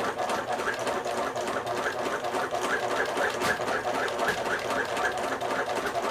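Sewing machine running at a steady speed, stitching a seam along the top edge of a two-layer fabric face mask with a rapid, even mechanical rhythm.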